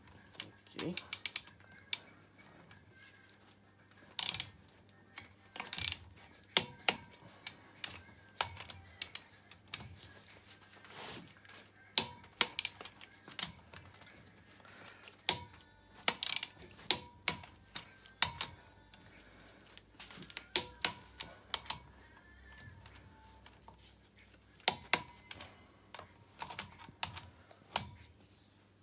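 Ratchet of a torque wrench clicking in short irregular runs as it is swung back and forth, tightening the cylinder head nuts to 30 newton-metres.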